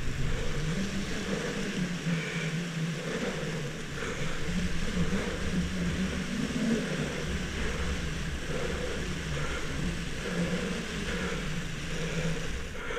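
A steady engine drone whose pitch wavers slightly, with a hiss of background noise.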